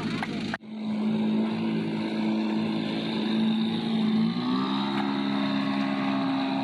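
An engine running steadily, its pitch stepping up slightly about four seconds in, after a brief break in the sound near the start.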